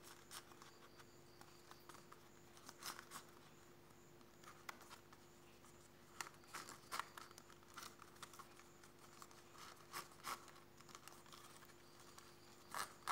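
Faint, irregular crackling and rustling of young coconut-leaf (janur) strips being pulled and tightened through a woven ketupat casing, over a faint steady hum.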